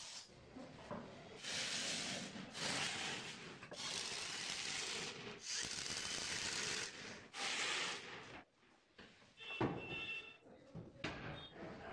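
Electric drill boring holes and driving screws into laminated plywood cabinet panels: a series of rasping bursts of a second or so each. Near the end a brief motor whine and a few knocks.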